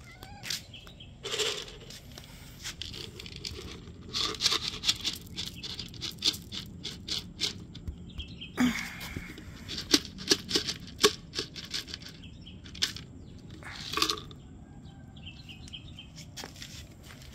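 Street cats crunching dry kibble off concrete: clusters of sharp little crunches and clicks, with a few louder scuffs between them.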